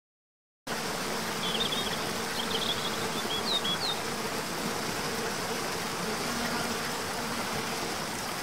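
Waterfall cascading over rocks, a steady rush of water that cuts in abruptly just under a second in. Small birds chirp several times over it during the first few seconds.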